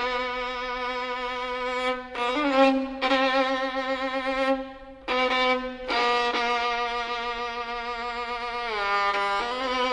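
Background music: a solo violin playing slow, long-held notes with vibrato.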